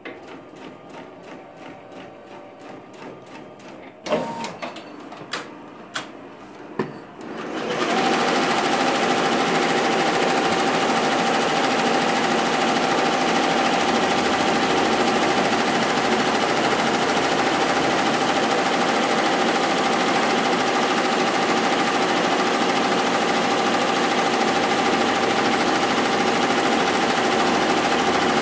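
Tajima commercial multi-needle embroidery machine stitching a placement guide line. After several seconds of light regular ticking and a few sharp clacks, it runs up to full stitching speed about eight seconds in: a loud, steady, rapid clatter with a constant whine over it.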